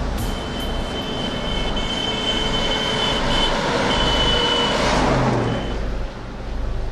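A Hino bus passing at speed on an expressway: engine and tyre noise build to a peak as it goes by about five seconds in, then fade. A high steady tone sounds on and off until it has passed.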